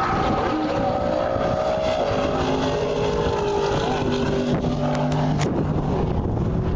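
A race car engine at full throttle on the track, its pitch climbing and then dropping at a gear change about two seconds in, then falling lower in steps. Wind buffets the microphone throughout.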